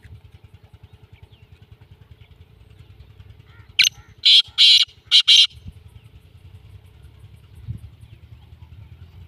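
Black francolin calling: a quick, loud run of about five harsh notes about four seconds in, the second-to-last one held a little longer. A low steady engine hum runs underneath.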